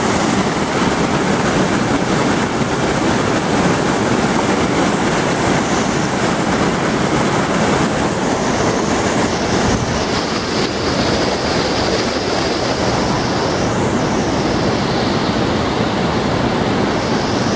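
Flash-flood water rushing down a driveway as white water, a loud, steady rush with no let-up.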